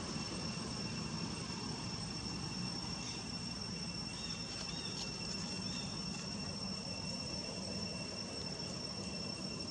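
Steady high-pitched insect drone, two unbroken tones over a low rumbling background, with a few faint short chirps around the middle.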